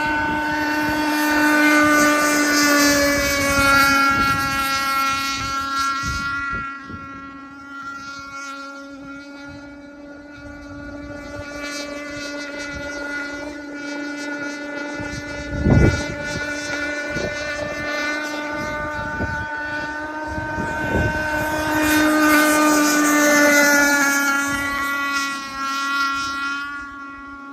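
Radio-controlled model speedboat's motor running at full speed as it laps the water, a steady-pitched buzz that is loud near the start, fades as the boat runs far off, and swells again about three-quarters of the way through as it passes close. Wind buffets the microphone throughout, with one sharp thump about halfway through.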